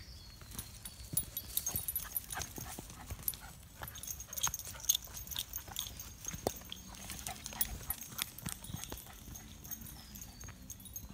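Irregular footsteps, scuffs and small snapping clicks on a dry earth path scattered with twigs and leaves, as a walker and small dogs move along it.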